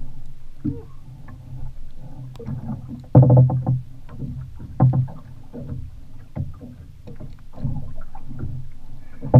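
Small waves slapping against the hull of a flats skiff at rest, with irregular knocks over a low rumble; the loudest cluster comes about three seconds in.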